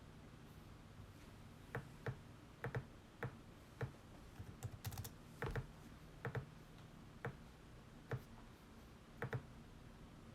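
Computer keys being pressed: scattered sharp clicks, singly and in pairs, with a quicker run of keystrokes about halfway through.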